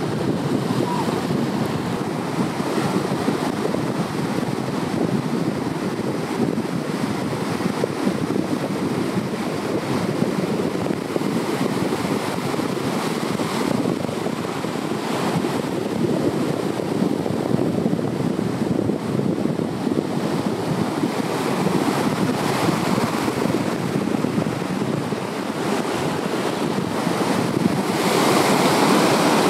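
Arabian Sea surf washing steadily onto the beach, with wind on the microphone; a wave comes in louder near the end.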